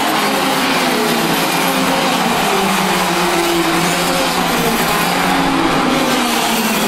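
A pack of KF2 racing karts with 125 cc two-stroke engines running hard, several engine notes overlapping and rising and falling in pitch.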